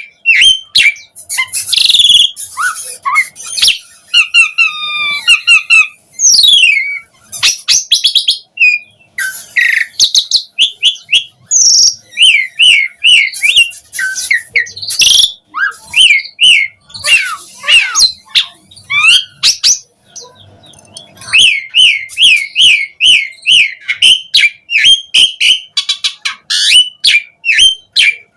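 Asian pied starling (jalak suren) singing a loud, varied song in a continuous run: quick series of repeated chirps, whistled notes that glide up and down, and harsh clicking calls, with a short lull about two-thirds of the way through. It is the vigorous, phrase-rich song that keepers call gacor.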